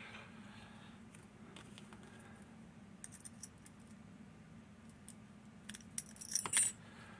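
Handling of a freshly picked lever lock and its picking tools: scattered light metallic clicks, with a short jingle of metal near the end.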